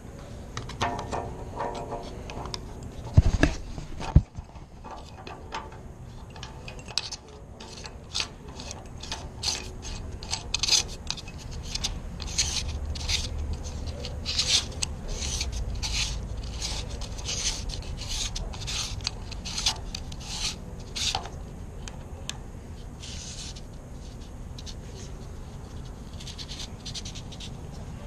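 Metal scraping and rasping as a thumbturn cylinder is turned by hand in the threaded hole of an aluminium Herculite door rail: a run of short rasping strokes, about two a second, through the middle. Two sharp knocks come a few seconds before it.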